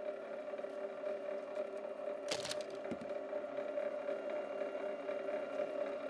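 Motorized wire stripping machine (BLUEROCK MWS-808PMO, 1 HP 120 V electric motor with gear drive) running steadily with a two-tone hum while stripping thick 250 MCM THHN stranded copper cable. A short crackle comes about two and a half seconds in.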